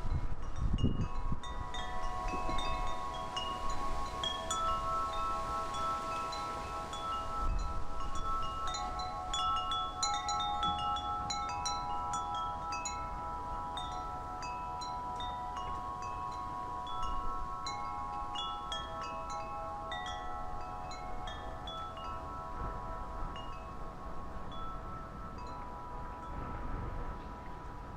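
Wind chimes ringing continuously, struck irregularly by the wind, their overlapping tones hanging and sustaining, with gusts of wind buffeting the microphone near the start.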